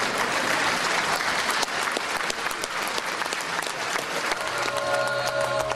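Audience applauding steadily. About four and a half seconds in, a steady held note or chord comes in underneath the clapping.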